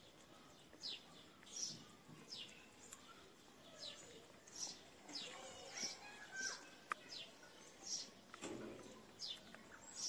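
A bird chirping over and over: a short, high, falling note repeated at an even pace, roughly every 0.7 seconds, over faint outdoor background noise.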